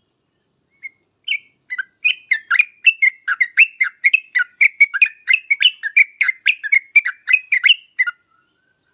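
Yellow-vented bulbul (trucuk) singing. A few single notes are followed from about two seconds in by a fast, bubbly run of chattering notes, about three or four a second, which stops near the end.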